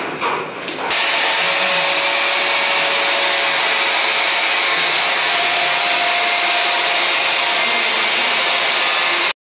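Handheld electric power tool running steadily with an even rushing noise. It starts abruptly about a second in and cuts off abruptly near the end.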